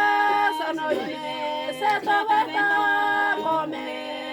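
A group of women singing a worship song a cappella, holding long, steady notes that change pitch every second or so.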